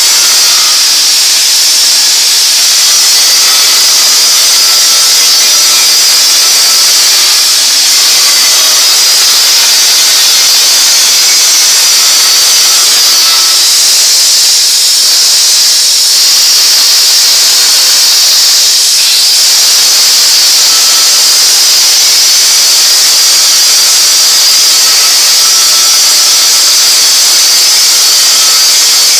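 Oxy-fuel gas cutting torch burning through a thick steel pipe turning on a lathe: a loud, steady hiss from the cutting jet.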